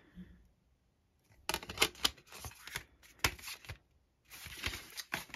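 Cardboard, paper and plastic disc packaging being handled: rustling with a few sharp clicks and taps, in two bursts after a quiet first second.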